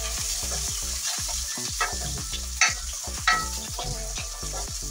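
Garlic and sliced onion sizzling in oil in a coated wok, stirred with a wooden spatula that scrapes and taps the pan again and again, with two louder knocks a little past the middle.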